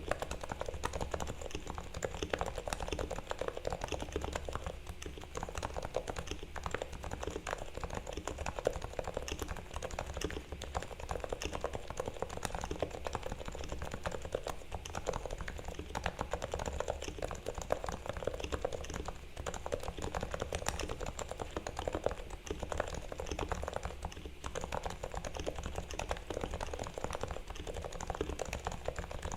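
Continuous typing on a Realforce R2 TKL silent, variable-weight Topre keyboard: a quick, steady stream of soft keystrokes. Its sliders, housings and springs are wet-lubed, its stabilizers levelled and lubed with Permatex, and its case is damped with Thinsulate.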